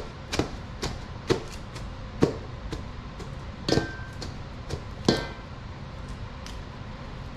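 Salted shredded red cabbage being pounded in a large bowl with a fermenting pounder, a series of irregular thuds about one or two a second that thin out and stop near the end. The pounding breaks the cabbage down to draw out its brine for fermenting.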